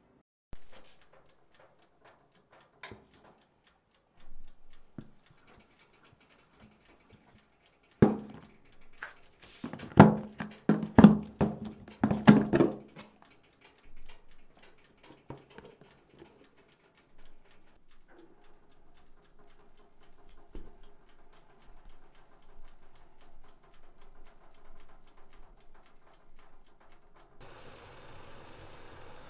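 Clip-lock plastic food container being opened: a few light clicks, then from about 8 to 13 seconds a burst of loud plastic clicks and knocks as the latch flaps are snapped open and the lid is lifted off. A faint steady hum follows, and near the end a stainless pot of water heating on the stove starts to hiss.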